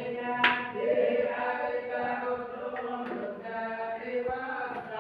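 Several voices chanting together in unison, holding long notes. There is a sharp click about half a second in.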